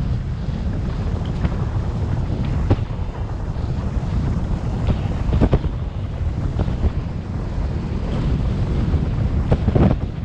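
Wind buffeting the microphone during a fast recumbent-bike descent, over a steady low rumble, broken by several short sharp knocks, the loudest two near the end.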